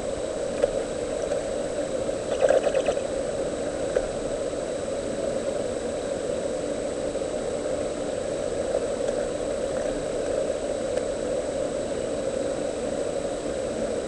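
Steady low droning hum with a thin, constant high whine, typical of nest-cam audio. About two and a half seconds in, a brief, rapid scuffling burst stands out over it.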